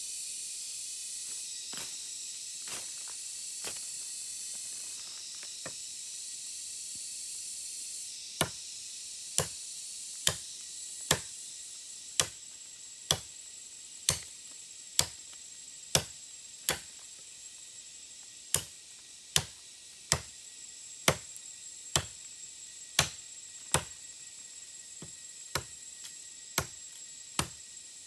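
Machete chopping into the base of a green bamboo culm: sharp strikes about one a second, starting about eight seconds in, over a steady high hiss.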